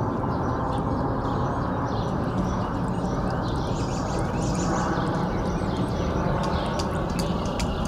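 A steady rushing background noise, with faint bird chirps and a few sharp clicks above it, the clicks coming mostly in the second half.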